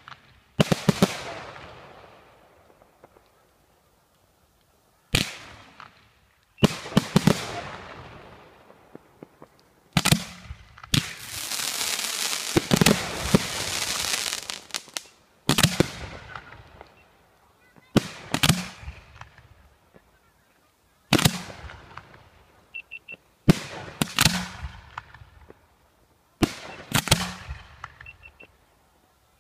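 Professional display fireworks, aerial shells bursting in a dozen or so sharp bangs a few seconds apart, each trailing off into crackle. Around the middle, a dense crackling hiss lasts several seconds.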